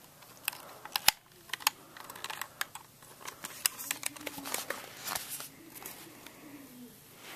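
Irregular clicks and rattles of a plastic toy being handled, the loudest click about a second in.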